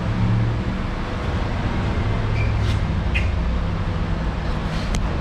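Steady low vehicle rumble, with a few faint short high chirps in the middle.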